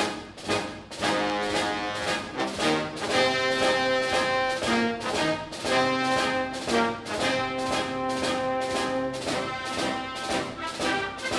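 Orchestral background music led by brass, with sustained chords over a steady driving beat.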